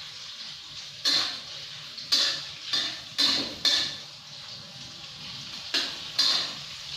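A utensil scraping and knocking against a wok, about seven sharp strokes in uneven bursts, over the steady sizzle of an egg frying in hot oil.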